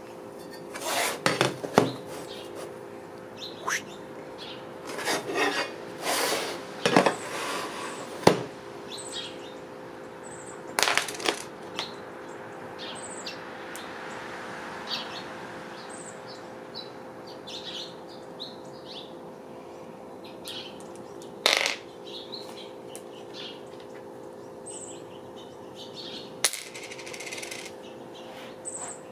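Steel plates and small screws handled on a wooden tabletop: a string of clanks, knocks and scrapes as the metal is picked up and set down, loudest in the first nine seconds and again a little past the middle and near the end. Birds chirp faintly in the background over a steady hum.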